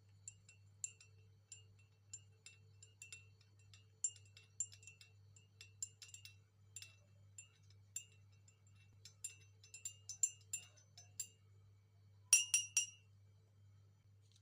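A spoon clinking against a glass cup, light irregular strikes as the drink is stirred, then three louder clinks in quick succession near the end.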